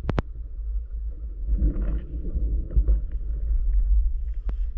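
Low, muffled underwater rumble of water moving over a waterproof camera housing as the diver swims. Two sharp clicks come just after the start, and a brief swirling hiss of water comes around the middle.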